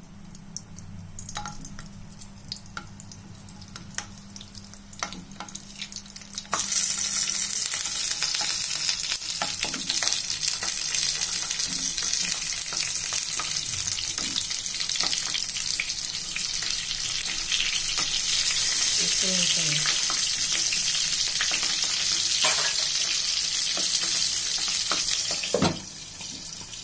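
Stuffed green capsicums frying in smoking-hot oil in a pan. There are a few light knocks at first as the peppers go in. A loud steady sizzle then starts suddenly about six seconds in and drops off sharply near the end as a glass lid goes on.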